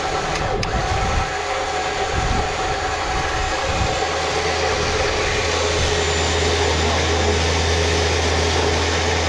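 The Jeep's electric winch runs steadily as it spools the new synthetic rope onto the drum, with a low drone that settles about four seconds in.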